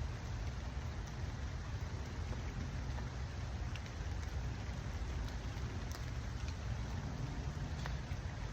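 Steady rain falling, with scattered sharp drop ticks over an even hiss and a low rumble underneath.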